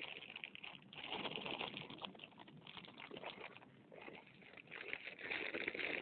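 Wood campfire in a dug trench burning, with irregular crackling and a hissing rush that swells and fades.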